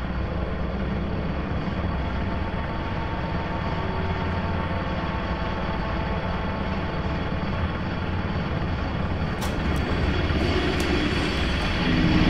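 Steady low mechanical drone of a spacecraft cabin's machinery and air systems, with a few sharp clicks near the end as the drone grows louder.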